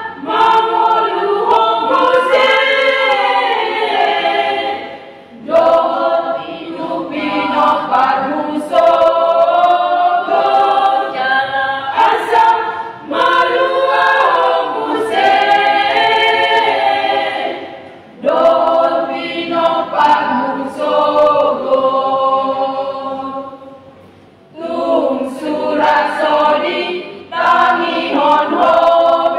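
Women's choir singing a hymn a cappella in Batak Toba, in long phrases with three short breaks for breath between them.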